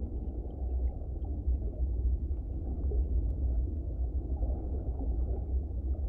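Low, steady underwater rumble beneath the sea ice, with a few faint short high pips scattered through it.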